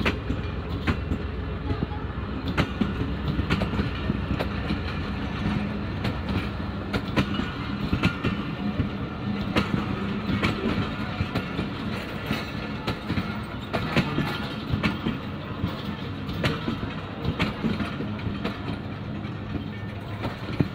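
Pak Business Express passenger coaches rolling past on departure, with a steady rumble and repeated clacks of the wheels over the rail joints.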